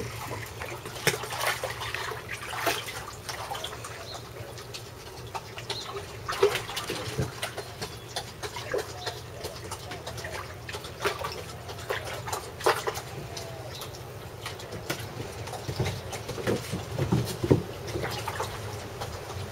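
Shallow water in a plastic kiddie pool splashing and sloshing as several dogs wade through it, with irregular short splashes and knocks all through.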